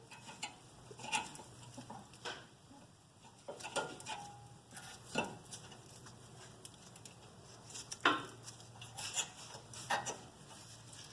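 Brake pads and their metal clips clinking and clicking as they are handled and fitted into a front brake caliper bracket: a scattering of separate light metallic knocks at irregular intervals.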